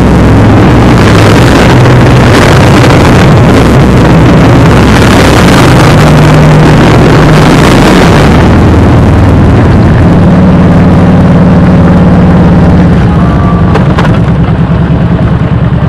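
Motorcycle V-twin engines running at road speed inside a road tunnel, very loud, with heavy wind rush on the microphone; the loudness eases off a little near the end as the bikes leave the tunnel.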